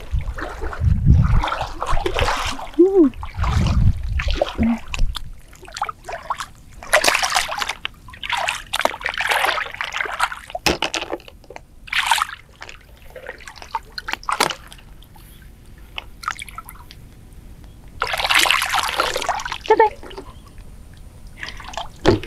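Stream water splashing and sloshing in irregular bursts as a person wades and feels about in the shallows, with a quieter spell a little past the middle.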